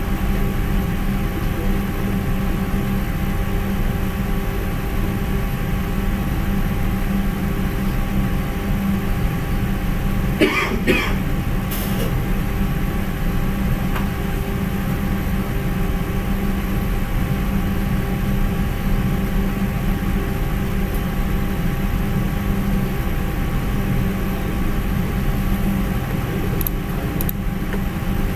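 Steady low hum and hiss of background noise, with a short cough-like throat sound about ten seconds in and a couple of faint clicks later.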